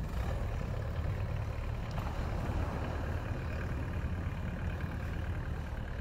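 Wind buffeting the microphone on a beach: a steady, uneven low rumble under a soft, even hiss of outdoor ambience.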